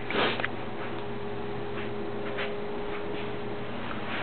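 A steady low electrical hum, with a few faint, irregular ticks and a short rustle just after the start.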